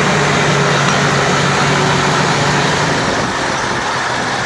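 Heavy-haulage Mercedes-Benz tractor unit's diesel engine running steadily as it hauls a 142-tonne boiler on a multi-axle low-loader, its hum easing off about three seconds in as the cab moves on.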